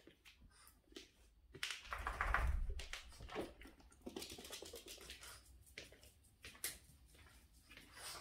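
Boston terrier's claws clicking and tapping on a hard floor as it trots, with a heavier thump about two seconds in.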